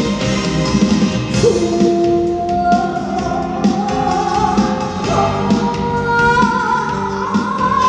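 Live trot song: a woman singing long, sliding held notes over instrumental accompaniment with guitar and a steady beat, the voice standing out from about three seconds in.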